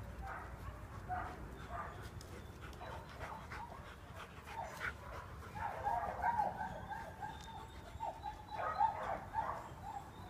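Huskies vocalising while playing together: short, pitched calls that come in two quick flurries, one about six seconds in and another around nine seconds.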